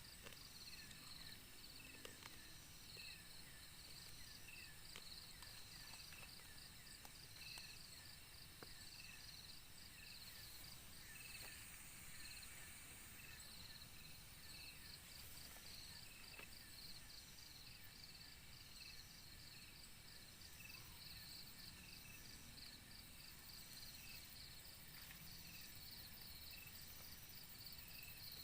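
Faint forest insect chorus, cricket-like: a rapid high pulsing trill with a lower chirp repeated about once a second, going on steadily.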